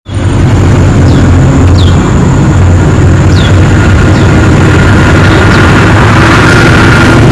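Loud, steady motor vehicle engine noise, with a faint whine that grows louder in the second half.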